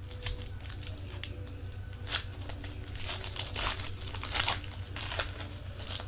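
Foil trading-card pack being torn open and crinkled by hand, in several short bursts of crinkling and tearing over a steady low hum.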